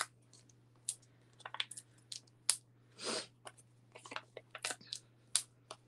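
Small foam adhesive dots (Stampin' Dimensionals) being peeled off their backing sheet and pressed onto cardstock: scattered light clicks and crackles, with one longer peeling rustle about three seconds in.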